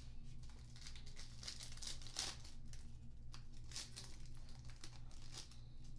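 Plastic trading-card pack wrapper being torn open and crinkled, in irregular rustling surges, with the cards being handled.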